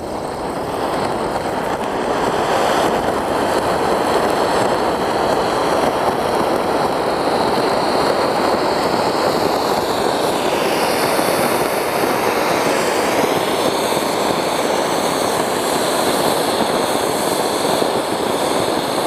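A large Cock Brand anar (ground fountain firework) burning: a steady rushing hiss of spraying sparks. It builds over the first couple of seconds, then holds level.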